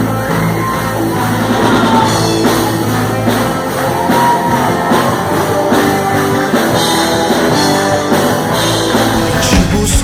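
Rock music with a lead voice singing over a band.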